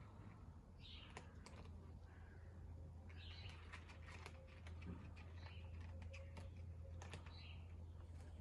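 Faint, scattered crisp clicks of cats chewing their food, with a few short chirps in between and a steady low hum.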